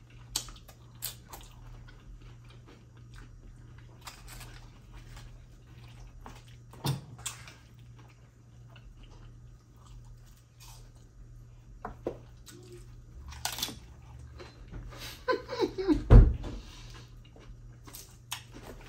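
Close-up crunching and chewing of nacho tortilla chips topped with cheese, chicken and shrimp, in scattered short crunchy bites. Near the end come a short vocal sound and a low thump.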